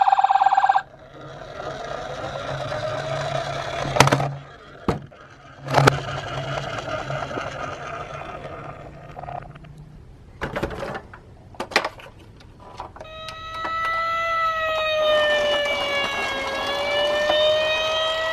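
Toy minicar sirens. A loud electronic siren tone cuts off just under a second in, then comes a stretch of toy cars rolling with a few sharp clicks and knocks, and near the end an electronic siren wails slowly down and back up.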